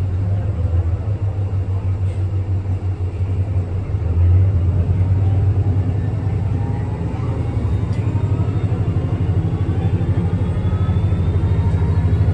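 A city transit bus running with a heavy, pulsing low rumble that grows louder about four seconds in. Through the second half, faint whines rise in pitch: the strange noise this bus makes.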